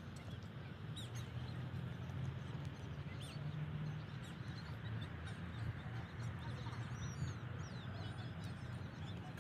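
Birds chirping now and then over a steady low rumble of outdoor background noise.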